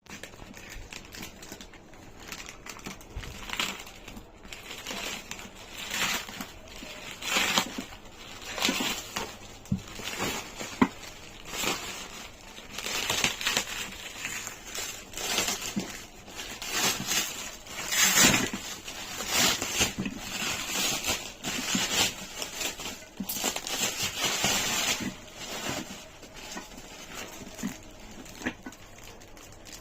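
Packaging being handled and unwrapped: irregular crinkling and rustling, coming in uneven bursts with a few sharp clicks.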